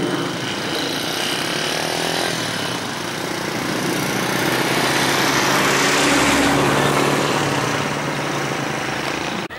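Steady engine drone under a broad rushing noise that swells to a peak about six seconds in and then fades.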